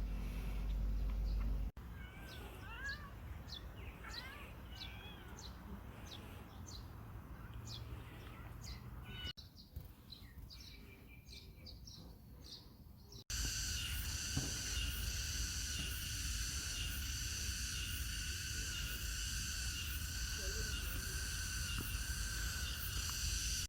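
Outdoor ambience with short chirping animal calls over a low background hum, broken by several abrupt cuts. In the last part a steady, high-pitched pulsing drone takes over.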